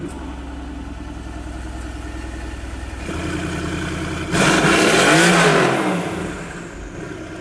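Mercedes-AMG GT R Pro's 4.0-litre twin-turbocharged V8, just started, running at a steady idle through the exhaust. About four seconds in it is revved once, the pitch rising and falling over a couple of seconds, before it settles back to idle.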